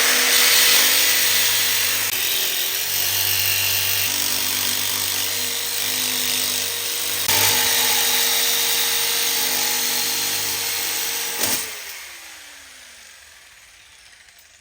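Electric jigsaw cutting sheet steel, its motor running steadily for about eleven seconds. Then a click as it is switched off, and the motor winds down with a falling whine.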